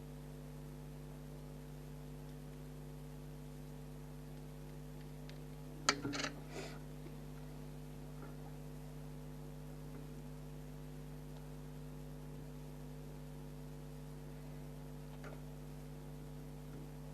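Steady electrical hum, with one sharp knock and a brief rustle about six seconds in.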